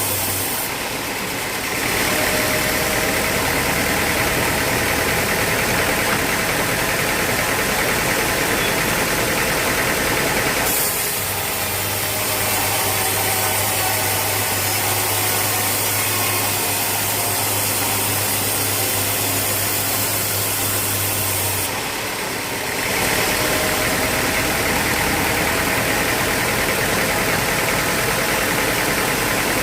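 Sawmill machinery running steadily, a loud even mechanical noise with a low hum. The sound changes abruptly about a second in, again around eleven seconds, and again around twenty-two seconds.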